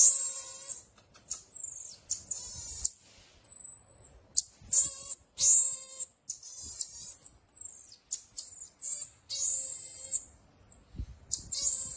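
Baby marmosets calling: a string of shrill, high-pitched calls, about one a second, some short and some drawn out for most of a second.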